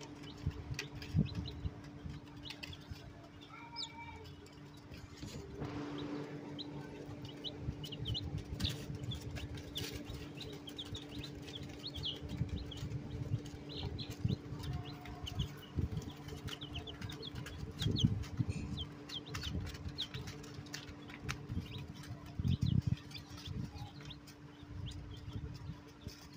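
Newborn chicks pecking at crumbled feed on a paper-lined cage floor: a scattered patter of beak taps and rustling, with short high peeps here and there.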